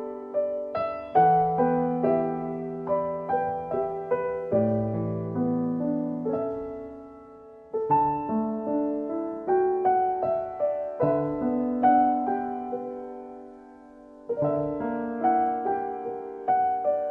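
Soft background piano music: slow single-note melody over lower held notes, each note fading after it is struck. The phrases die away twice and start again.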